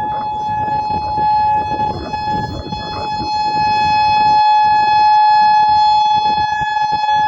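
Whelen 4004 outdoor warning siren sounding one steady, high-pitched tone during a scheduled test, over a low rumbling noise.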